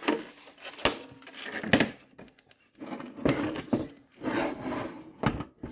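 A metal payphone being turned over and shifted by hand on a hard surface: irregular rubbing and scraping, with a few sharp knocks.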